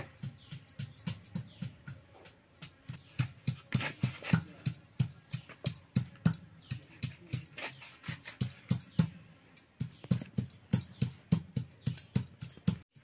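Steady rhythmic knocking, about three to four strokes a second, from hand food preparation against a hard surface, with a short lull about ten seconds in.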